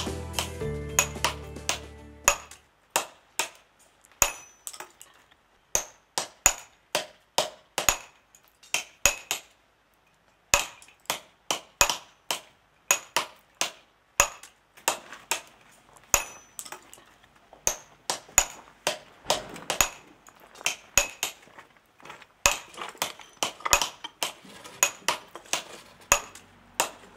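Stonemason's hammer striking granite blocks to dress them: sharp ringing clinks at an uneven pace, about one or two a second, with a couple of short pauses. Background music fades out in the first two seconds.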